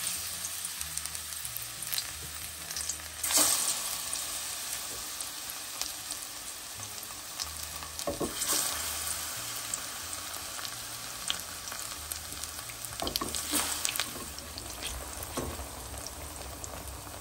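Ripe plantain slices frying in hot oil in a pan: a steady sizzling hiss, with louder spells of crackling a few times as more slices go in.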